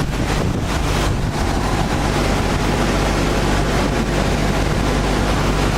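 Sanding machine for profiling wooden board cores running steadily, a loud even rushing noise over a low hum.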